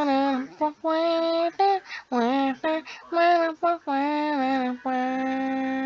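One person singing a melody with no accompaniment: a run of short notes that slide in pitch, ending on one long held note.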